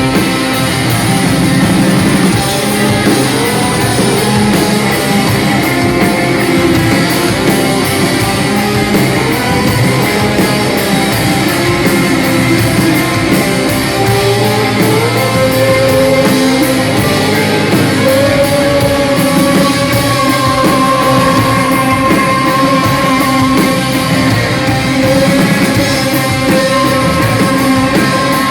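Rock band playing live: distorted electric guitars over a drum kit. From about the middle on, a guitar line glides up and holds long sustained notes.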